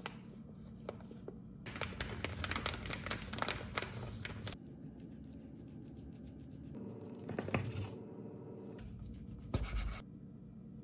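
Kitchen food-prep handling sounds: three bouts of scraping and rustling, the last ending in a short thud about ten seconds in.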